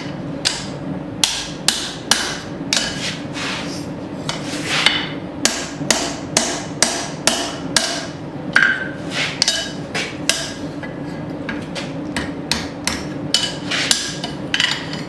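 Hand hammer striking hot steel on the anvil, closing a wrapped axe eye down toward the size of the drift. The blows come in a steady run of about two a second, some ringing sharply, over a steady low background hum.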